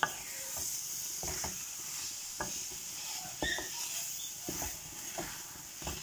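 Spatula stirring and scraping a thick cauliflower and tuna mash in a metal karahi, with irregular knocks against the pan over a steady sizzle as it fries dry.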